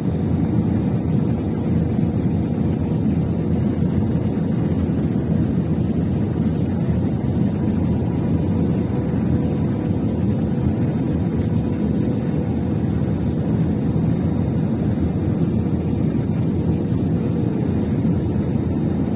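Airliner cabin noise heard from a window seat over the wing: the steady rush of the engines and airflow, with a faint steady hum underneath, as the plane descends on approach to landing.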